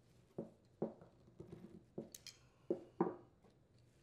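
About seven short, irregular knocks and clicks of small metal parts being handled: a wrench, nut and washers coming off a bolt through a tiller clutch drum and bearing, set down on a cloth-covered bench. The loudest knocks come near the end.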